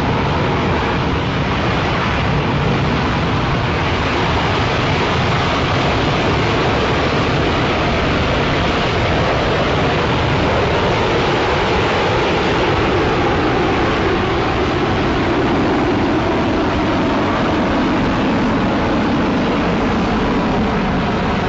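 Hovering aircraft's jet engines running: a steady, loud rushing rumble, with one band in it slowly dropping in pitch through the second half.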